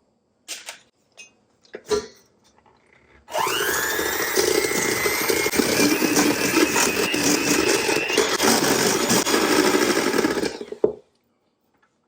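Electric mixer creaming butter and sugar: the motor spins up with a quickly rising whine about three seconds in, runs steadily for about seven seconds, then switches off.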